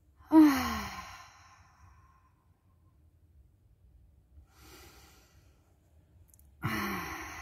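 A person sighing out loud: two long, loud exhaled breaths with a falling voiced tone, one about half a second in and one near the end, each trailing off, with a faint breath between them.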